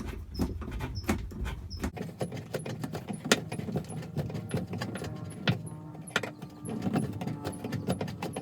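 Irregular metal clicks and scrapes of a flathead screwdriver turning a new 5/16-inch mast-base stud into its brass insert, driving it home as it tightens.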